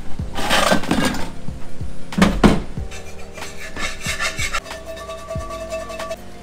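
Rummaging in a plastic storage tote: things knock and scrape against the plastic, with two loud clattering bursts in the first three seconds and lighter knocks after them, as a skillet is pulled out.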